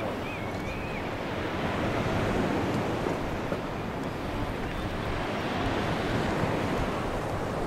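Steady rushing of wind on the microphone mixed with sea water washing and lapping.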